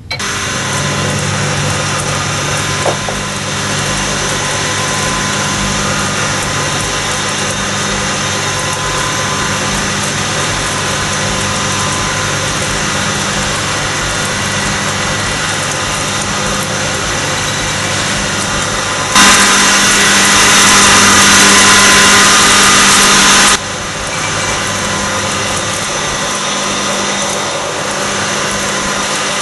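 Microwave oven running with a steady hum. About two-thirds of the way through, a louder rushing noise comes in for about four seconds and cuts off suddenly.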